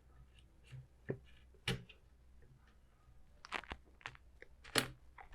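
Corsair DDR4 RAM stick being pressed down into a motherboard DIMM slot: a few short, sharp plastic clicks as the module seats and the slot's clip closes, the loudest just under two seconds in and near the end.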